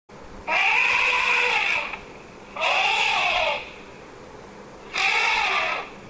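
Elephant trumpeting: three loud calls of about a second each, each rising and then falling in pitch.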